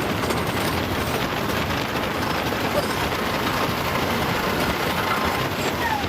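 GhostRider wooden roller coaster train running at speed along its track: a loud, steady, noisy rumble heard from on board.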